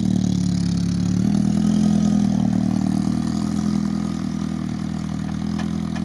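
Off-road Lada Niva's engine idling steadily, its pitch stepping up slightly about a second in.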